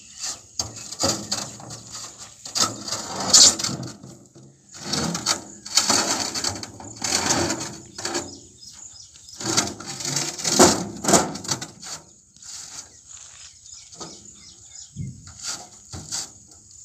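Irregular knocks and scrapes of rough granite stones being lifted and set down in a bullock cart's bed, with rustling handling noise between them.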